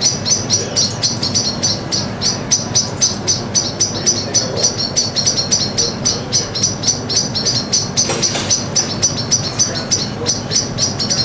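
Birds chirping rapidly and without a break, high short chirps at about five a second, over a low steady rumble.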